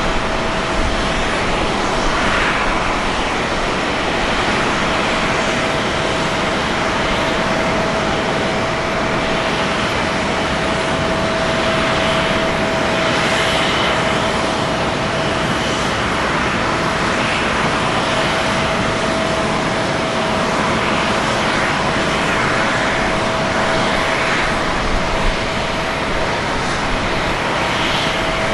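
Steady airport apron jet noise: a constant roar with one steady whine held through it, and a few faint swells of higher noise from time to time.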